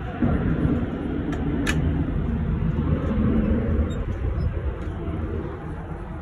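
Low, steady rumble that eases off near the end, with two sharp clicks about a second and a half in.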